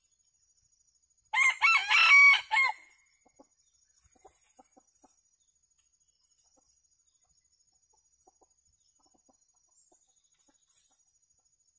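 A rooster crows once, one crow about a second and a half long, followed by a few faint soft clucks.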